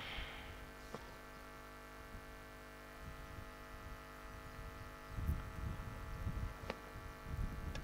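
Faint steady electrical mains hum with many evenly spaced overtones, from the broadcast audio chain. Low rumbles come through about five and six seconds in, along with a few faint clicks.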